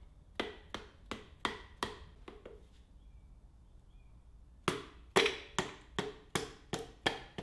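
Quick light taps of a mallet's handle end on a piston crown, about three a second, driving the piston and its rings down through a ring compressor into a cylinder bore of a Ford 302 V8 block. One run of taps, a pause of about two seconds, then a second run.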